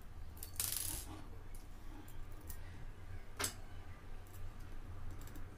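Small hex screwdriver and quadcopter frame parts being handled as screws are driven in to join the centre plate and arms: a short scraping rustle just under a second in, a sharp click about three and a half seconds in, and a few faint clicks, over a low steady hum.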